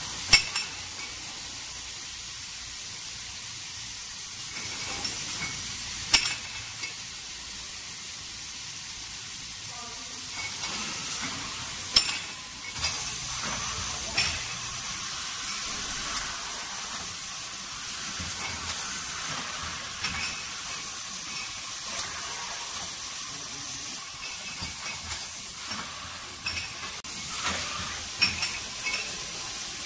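Fully automatic chain-type screen printing machine for glass wine bottles running: a steady hiss, broken by sharp mechanical clacks and clinks every few seconds.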